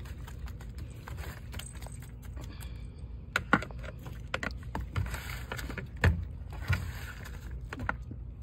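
A metal hand cultivator scraping and scratching through wood-chip mulch in plant pots, with irregular clicks and clinks and a sharp knock about three and a half seconds in.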